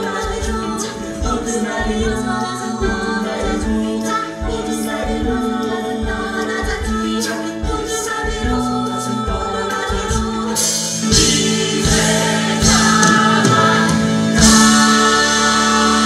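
Musical theatre song: cast voices singing together over a live band with a steady drum beat. The music swells with cymbals about ten seconds in and again near the end.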